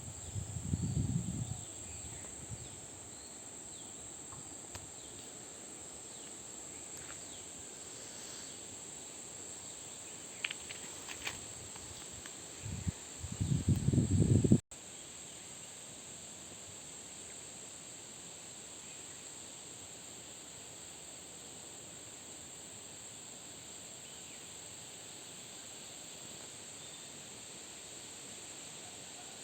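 Insects keeping up a steady high-pitched chorus, with a few faint short chirps. Two low rumbles break in, about a second in and more loudly around 13 to 14 seconds, ending in a sudden brief dropout.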